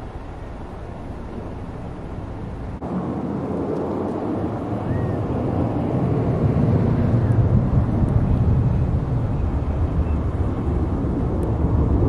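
Outdoor low rumbling background noise that swells louder over several seconds, with a single faint short bird chirp about five seconds in.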